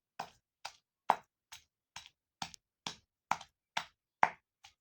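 Boneless chicken being pounded by hand into paste for Kashmiri rista: a steady run of sharp strikes, about two a second.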